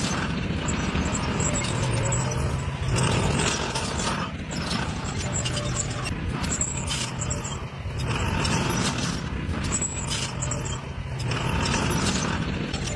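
Heavy diesel earthmoving machinery, bulldozer and dump trucks, running with a steady low engine note and irregular noisy surges.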